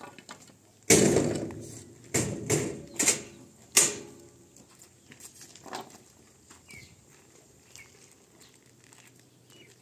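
A series of five loud thumps about a second in and over the next three seconds, each trailing off briefly, followed by a few faint knocks.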